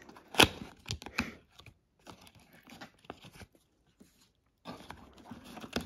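Small cardboard product box being pulled open by hand. A sharp tearing snap comes about half a second in, followed by a few smaller clicks. Then faint scattered crinkling and rustling of the cardboard flaps and paper packing, which grows a little louder near the end.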